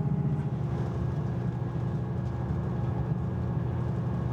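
Class 158 diesel multiple unit running along the line, heard from inside the carriage: a steady diesel engine drone over a low rumble. Its note shifts about half a second in.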